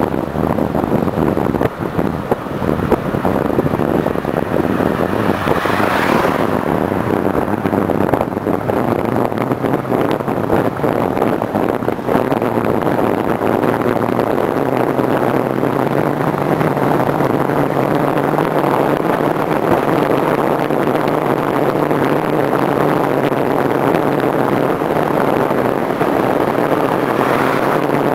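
Wind rushing over the microphone and tyre noise of a recumbent bicycle riding at speed on asphalt: a steady, loud rush that swells briefly about six seconds in and again near the end.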